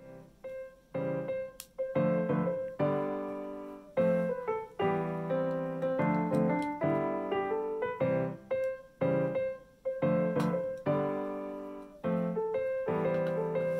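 Background keyboard music: a light piano-like tune of single notes and chords struck in quick, even succession.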